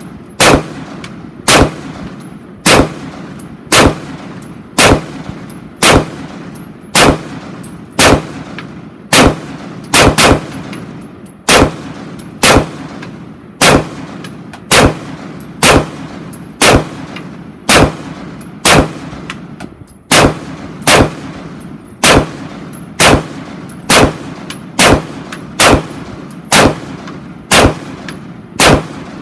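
Custom-built Taiwanese T91-pattern 5.56 mm piston rifle fired as a long string of deliberate single shots, about one a second and very evenly paced, each crack followed by a short echo.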